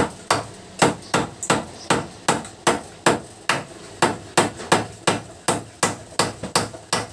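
Claw hammer driving a nail into a wooden slat: a steady run of about nineteen sharp strikes, nearly three a second, stopping just before the end.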